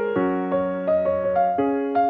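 Background music: a piano playing a gentle, evenly paced melody of repeating notes.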